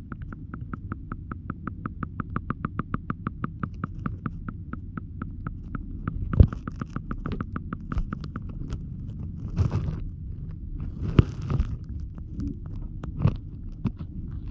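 Muffled underwater sound picked up by a phone inside a leaking waterproof pouch as water seeps in: a low rumble with a regular ticking about five times a second that fades out partway through. It is followed by scattered knocks and short sloshing splashes.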